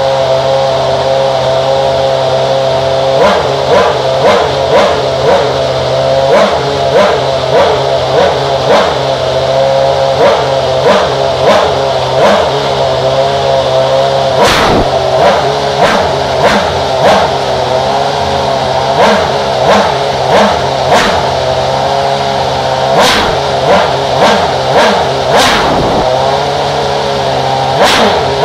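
McLaren Mercedes Formula 1 car's 2.4-litre Mercedes-Benz V8 running stationary, idling and then blipped on the throttle in quick, short revs about one and a half times a second from about three seconds in. A few sharper cracks and bigger revs come around the middle and near the end. It is deafening.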